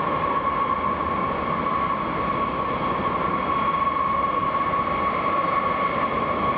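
Steady droning noise with a constant high-pitched whine running over it, unchanging in level.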